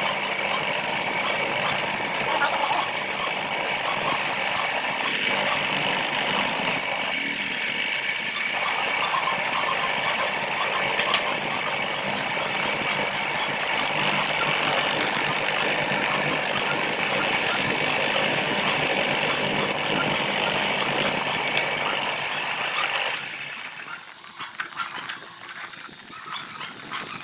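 Electric drill mounted upright, running steadily as it bores a hole through a flat steel bar. The motor cuts off about 23 seconds in, leaving light clicks and clinks of the metal being handled.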